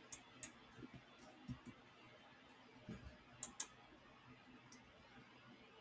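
A handful of faint computer mouse clicks, some in quick pairs like double-clicks, over near-silent room tone.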